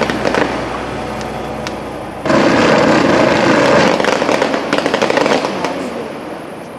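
Fireworks fountains (gerbs) hissing with fine crackling as they throw fans of sparks. A louder fan of fountains flares up suddenly about two seconds in, then the noise fades away toward the end.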